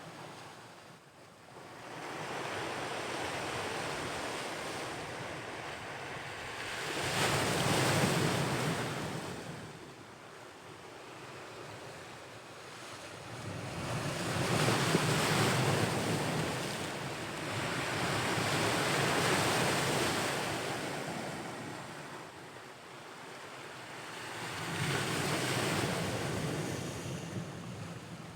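Ocean waves breaking and washing onto the shore, swelling and fading in slow surges every several seconds.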